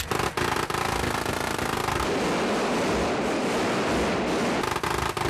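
Rapid automatic gunfire, the shots following so closely that they run together into one unbroken burst lasting several seconds.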